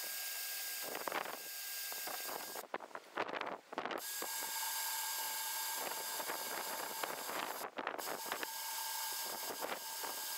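Electric drill boring through a metal bracket, its motor whining steadily. It stops for about a second a few seconds in and starts again on a second hole at a lower whine, with another brief stop later.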